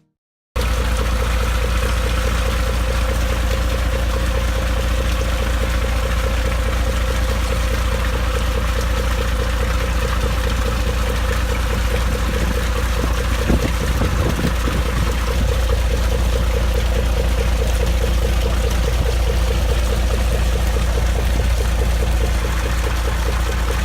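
Fishing boat engine running steadily with an even, fast beat, with a brief louder burst of noise about halfway through.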